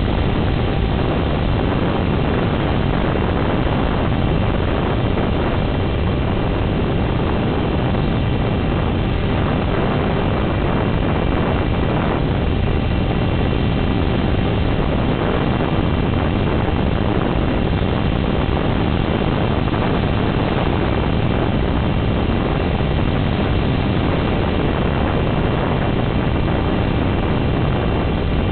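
Dynam HawkSky's electric motor and propeller running steadily under part throttle in cruise, mixed with rushing wind, heard from on board the plane.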